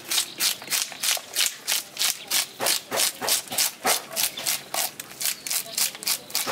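Fish scaler scraping the scales off a grouper in quick, even strokes, about four a second.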